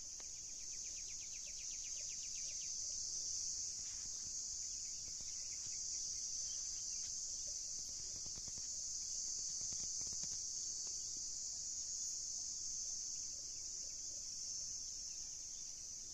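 A steady, high-pitched insect chorus drones on without a break. In the first two or three seconds, a fast pulsing trill sits below it.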